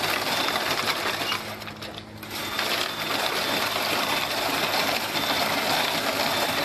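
Model mine haulage running, its small coal-laden tubs rattling along miniature rails with a steady mechanical clatter and metallic jingling. The clatter drops away briefly about a second and a half in.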